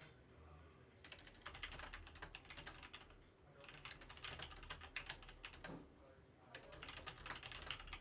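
Typing on a computer keyboard in three quick runs of key clicks with short pauses between them.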